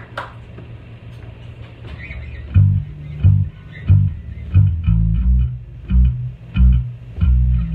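Electric bass guitar starting a song: after a quiet stretch with a faint low hum, a line of loud low plucked notes begins about two and a half seconds in and pulses at roughly three notes every two seconds.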